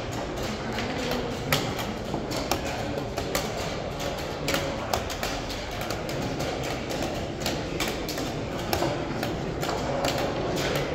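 Quick, irregular clicks and taps of wooden chess pieces set down on a board and hands pressing the buttons of a digital chess clock during a blitz endgame, over a steady background noise.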